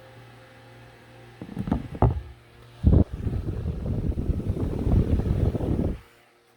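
Hawaiian Breeze 9-inch oscillating table fan running on high speed: a steady low motor hum, then loud rough buffeting as its airflow hits the microphone, in short gusts and then for about three seconds. The buffeting stops suddenly near the end.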